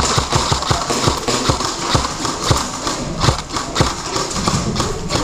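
A rapid, uneven run of dull knocks and thuds, about three or four a second.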